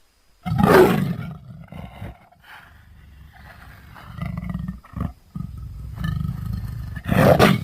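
Big cat roaring: one loud, rough roar about half a second in, a string of quieter growling calls through the middle, and another loud roar near the end.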